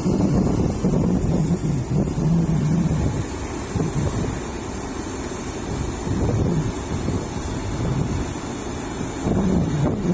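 Excavator's diesel engine working, heavy and low; it is louder for the first few seconds, eases off through the middle and picks up again near the end as the load on it changes.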